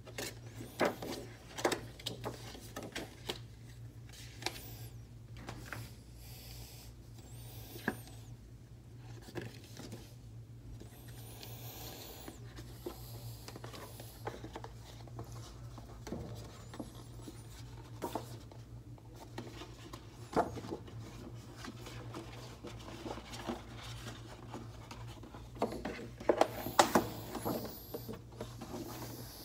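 Large folded glossy paper mailer being unfolded and handled: rustling and crinkling with scattered sharp paper snaps, loudest in a cluster near the end, over a steady low hum.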